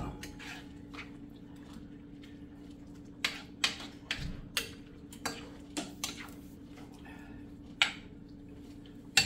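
A cooking utensil clinking and tapping irregularly against a skillet as shrimp are stirred into the sauce, about eight sharp knocks starting about three seconds in, over a steady low hum.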